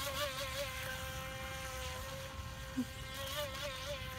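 Battery-powered electric motor of a Venom RC power boat running with a steady high-pitched buzzing whine. Its pitch wavers briefly twice.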